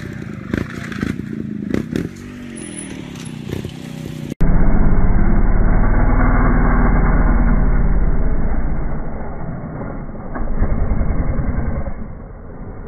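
Trials motorcycle engine blipping and running, with several sharp knocks as the bike works over rock. About four seconds in, the sound cuts to a louder, muffled recording: a heavy low rumble with the engine revving up and down, then running with an even beat near the end.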